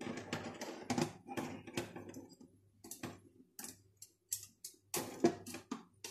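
Metal tongs and wire-mesh trays clicking and tapping against the rack of an air fryer oven as food is turned and a tray is slid back in. It is an irregular string of light clicks, and the sharpest comes a little after five seconds in.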